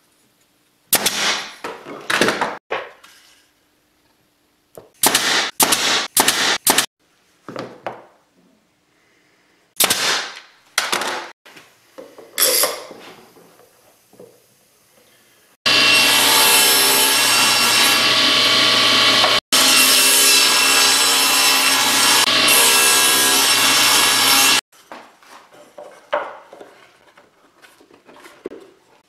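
A power tool working wood runs loudly and steadily for about nine seconds in the middle, stopping briefly once and then cutting off abruptly. Before it come scattered sharp knocks and clicks of wooden pieces and tools being handled on the bench, and softer handling noises follow.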